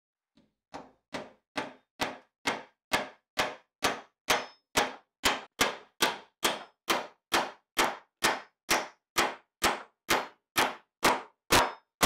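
A steel-headed hammer with a wooden handle driving a nail into a wooden plank: steady blows about two a second, starting as light taps and reaching full strikes within the first couple of seconds, each a sharp hit on the nail head.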